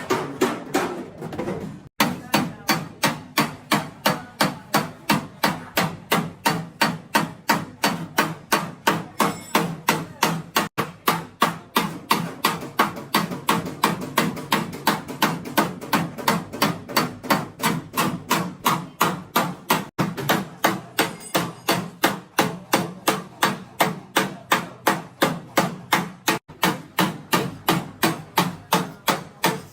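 Hammer striking a Honda City's sheet-metal body panel in a steady run of sharp blows, about three a second: panel beating to work out accident damage.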